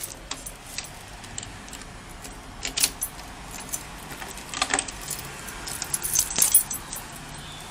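A bunch of keys on a ring jangling as a key is worked in a door lock: a few sharp metallic clicks and jingles, busiest near the end.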